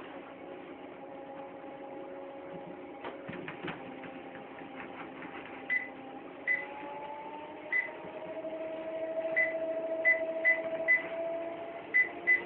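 Electric treadmill motor running with a steady whine. A series of short, high electronic beeps, like console button presses, begins about six seconds in, and the motor's pitch rises as the belt speeds up.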